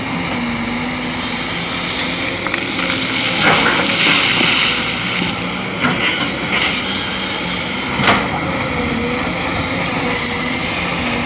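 Kobelco SK200 hydraulic excavator's diesel engine running steadily as the machine digs, with several sharp metal clanks from the bucket and arm and a harsh, high-pitched squeal lasting about a second and a half a third of the way in.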